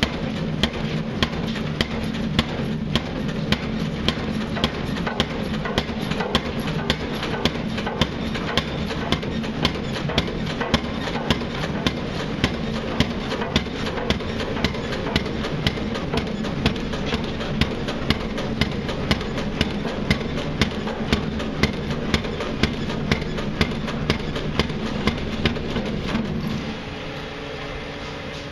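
Pile driver hammering a pile: sharp, evenly spaced blows at about two a second over the steady hum of its running motor. Both the blows and the motor's hum stop together near the end, leaving a quieter hum.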